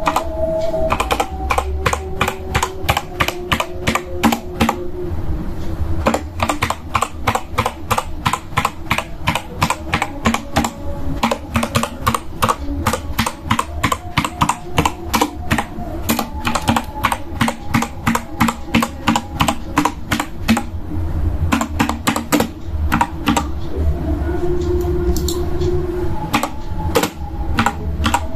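Typing on a Digital Alliance MECA 8X mechanical keyboard with Outemu Red switches: a fast, unbroken run of keystrokes, several a second, close to the microphone.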